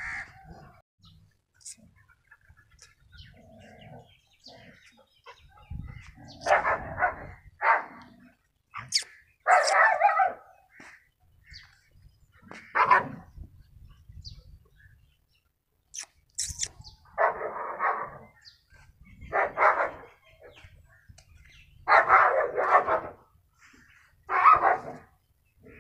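A dog barking: single barks and short pairs every couple of seconds, with quiet gaps between them.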